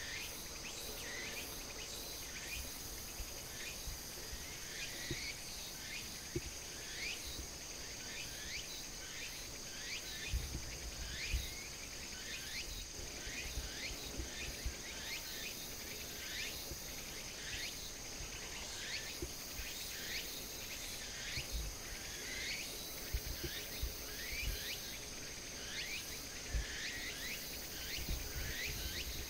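Outdoor insect chorus: a steady high-pitched drone, with short falling chirps repeating about once a second. A few faint low bumps come through.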